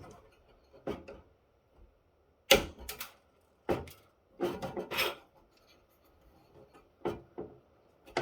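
Irregular knocks and clunks of a network switch's circuit boards and metal parts being handled and set down, with some rubbing between them. The loudest knock comes about two and a half seconds in, and there is a quick run of clunks around four to five seconds.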